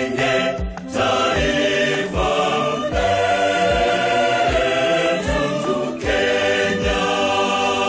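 Background music: sustained chords, sung or choir-like, over a steady bass drum beat of a little more than one beat a second.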